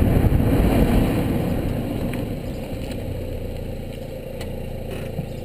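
Mazda MX-5 rolling along with its engine and tyres making a low rumble that fades steadily as the car slows. A few faint ticks come in the second half.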